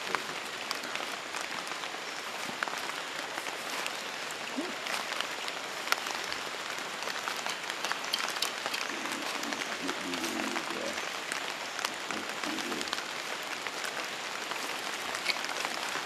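Rain falling on rainforest foliage: a steady hiss made up of many small drop ticks.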